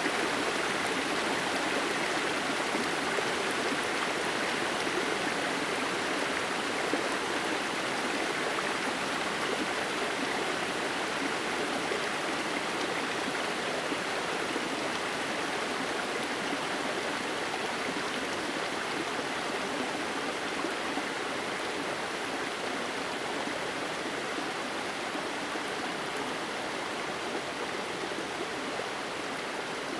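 A steady rush of falling water from a 30 m waterfall whose water runs down the rock face in thin threads, easing slightly toward the end.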